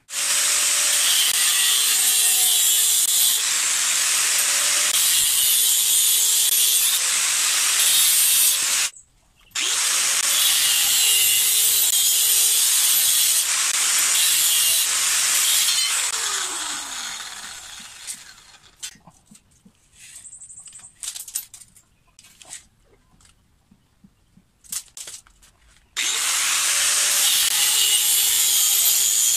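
Angle grinder with a cut-off disc cutting through galvanized steel pipe in long, steady runs. It stops briefly about nine seconds in. About sixteen seconds in it spins down with a falling whine, and several seconds of scattered light knocks follow before it cuts again near the end.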